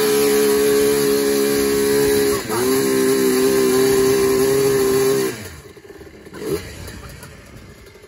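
Sport ATV engine with an FMF aftermarket exhaust held at high, steady revs, dipping briefly about two and a half seconds in, then dropping off sharply about five seconds in.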